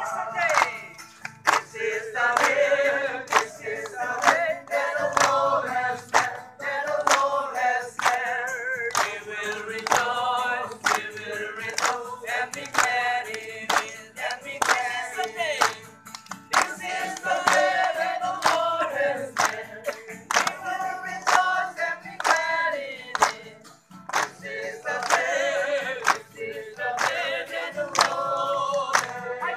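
A group of voices singing together unaccompanied, with men and women joining in, and handclaps keeping a steady beat.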